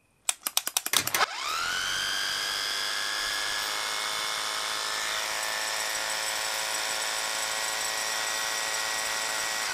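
Corded hammer drill running free with no bit load, powered from the dynamotor: a quick rattle of clicks, then the motor winds up with a rising whine and runs at a steady high pitch, starting to wind down at the very end.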